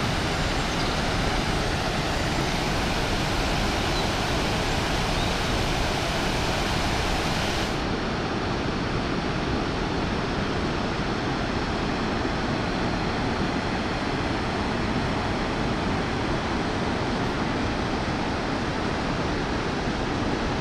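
The Rhine Falls rushing: a steady, unbroken roar of heavy water. About eight seconds in the sound turns a little duller, losing its highest hiss.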